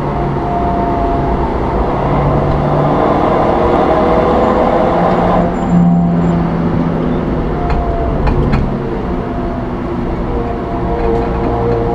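Suzuki Swift's engine running at about 90 km/h with road and tyre noise, heard from inside the cabin. The engine note shifts about halfway through, and a few light clicks follow shortly after.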